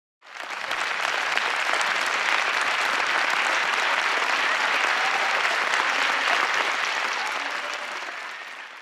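Audience applauding steadily, the clapping starting suddenly and fading away near the end.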